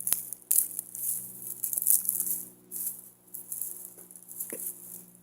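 Rustling in shaky, maraca-like bursts that come and go, with two sharp clicks near the start, over a steady low hum.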